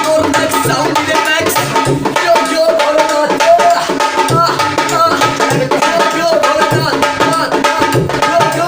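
Instrumental break of a live Indian folk song: a dholak drum keeps a steady, fast rhythm under a melody instrument playing the tune, with no singing.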